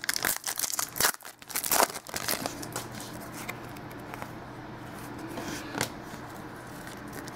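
Stiff football trading cards being slid and flicked through the hands: a quick run of dry rustles and snaps over the first two seconds or so, then only a few faint clicks over a low steady hum.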